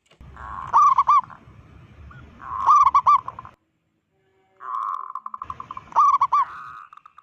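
Zebra dove (perkutut) singing: three song phrases, each a rolling, quickly pulsing coo that ends in three loud ringing coos.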